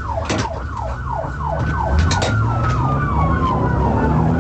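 Police car siren in a fast yelp, its pitch sweeping down about four times a second, with a slower tone gliding steadily down through the second half. Vehicle engine and road rumble run underneath.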